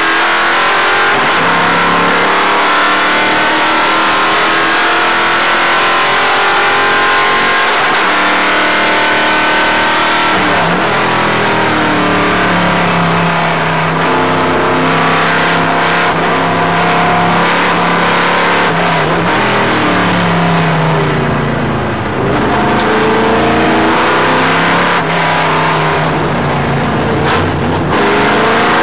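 Racing stock car engine heard from inside the cockpit at full racing volume. Its note climbs again and again and drops back, as the car accelerates and comes off the throttle through the gears.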